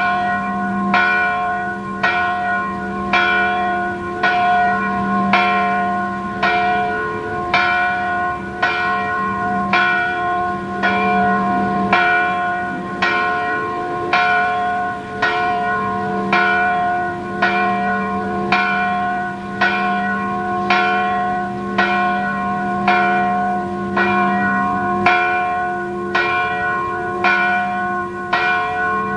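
Three church bells (cis'–fis'–ais', cast 1926, 1960 and 2006) swinging together in full peal for the noon ringing, hung and rung in the typical Hungarian manner. Their strikes overlap in a quick, even stream, about three every two seconds, with the bells' hum ringing on underneath, heard close up in the tower.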